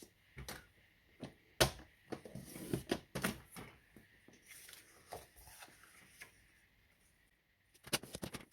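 Cardstock being scored on a scoring board: the scoring tool scrapes along the grooves, with taps and paper handling as the card is turned, and a quick run of clicks near the end.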